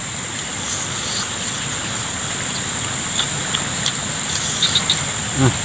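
Steady high chirring of an insect chorus, with a few faint crunches of a man chewing crispy fried snake fruit and a brief voiced sound from him near the end.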